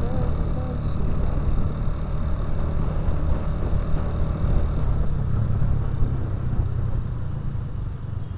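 Motorcycle riding through town traffic: the steady low rumble of its engine and road noise, with other scooters running alongside.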